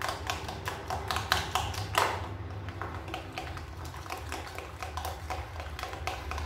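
A utensil tapping and scraping rapidly against a plate while stirring a wet flour batter for bhajia, about three to four clicks a second.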